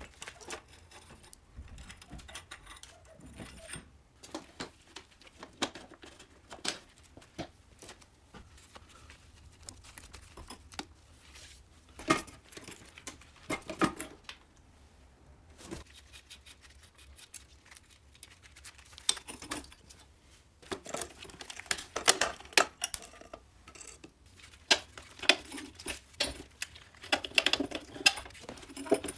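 Dismantling sounds on an old Riga moped: scattered clicks, clinks and knocks of hand tools and small metal parts being handled and loosened, busier in the second half.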